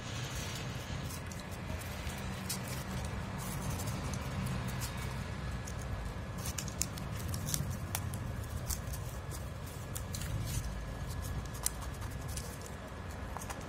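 A craft knife's blade cutting through corrugated cardboard, making irregular small crackling ticks as it is drawn along the cut line.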